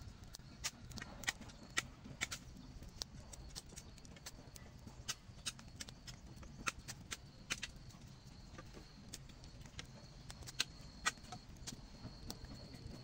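Small wood fire crackling with irregular sharp pops and snaps, several a second. A faint steady high-pitched insect whine runs underneath, clearer in the second half.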